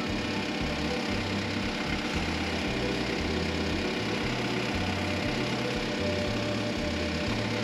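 Diesel tractor engine running steadily, under a low bass line that steps between a few notes about every half second.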